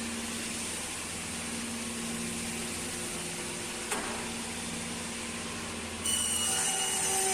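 Woodworking machine motor running steadily with a hum. There is a single click about four seconds in, and about six seconds in a louder, higher-pitched noise joins the hum.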